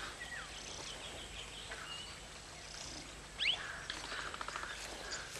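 Quiet wild bird calls: a few short chirps and whistles, a brighter rising chirp about three and a half seconds in, then a quick rattling trill.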